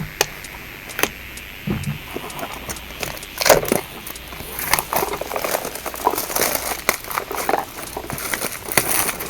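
A Magic: The Gathering booster pack's foil wrapper being torn open and crinkled: a couple of sharp clicks first, then irregular crackling from about three seconds in.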